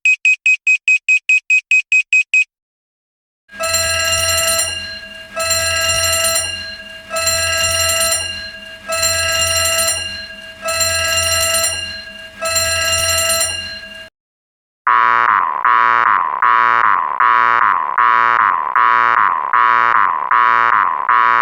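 A run of alarm sound effects. First a fast electronic beeping, about five high beeps a second for two seconds. After a short gap, an alarm tone sounds six times, each blast about a second and a half long. After another brief gap, a ringing alarm pulses about one and a half times a second.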